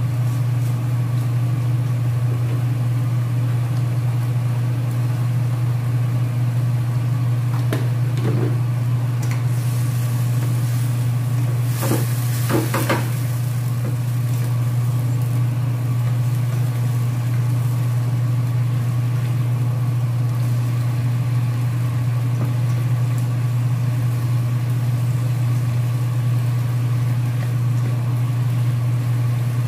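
Bitter gourd slices sizzling in a frying pan under a steady low hum, with a spatula scraping and stirring in the pan twice, a little before and around the middle.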